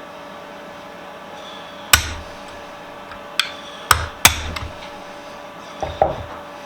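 Hammer striking a small pin punch to drive a retaining pin out of a benchtop vise: about six sharp metallic taps at uneven intervals, starting about two seconds in. A faint steady hum runs underneath.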